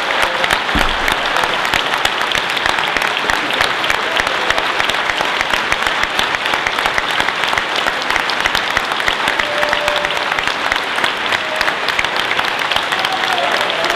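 Conference audience applauding, a long steady round of clapping from many hands.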